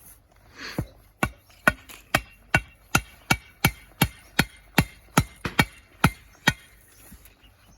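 About fifteen hard, rhythmic strikes, roughly three a second, of a tool tamping stones and dirt around a newly set fence post to pack the backfill tight.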